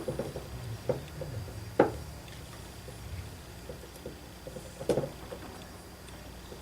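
A few light knocks and clicks of small engine parts and tools being handled during reassembly of an OS FS-60 glow engine, the sharpest about two seconds in and another near five seconds, over a steady low hum.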